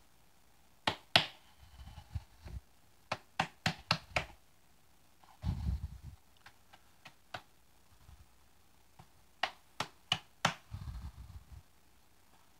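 Bagel dough being kneaded by hand on a floured mat: irregular sharp slaps and taps, with three short stretches of dull thumping as the dough is pressed and turned.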